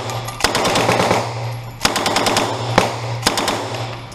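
Uzi 9 mm submachine gun firing on full auto in three short bursts of rapid shots, echoing in an indoor range booth.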